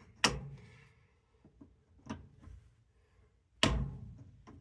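Needle-nose pliers knocking and clicking against a washing machine's water inlet fitting while the inlet filter screen is pulled out. There are two sharp knocks about three and a half seconds apart, with a few faint clicks between them.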